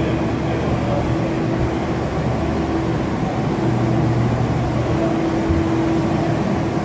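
Steady mechanical hum of a stationary commuter train, with a low tone and a higher tone that each swell and fade.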